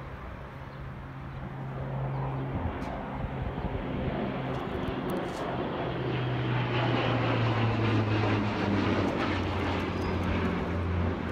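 Small plane flying low overhead: a steady engine drone that grows louder, peaking about two-thirds of the way in, and drops in pitch as it passes.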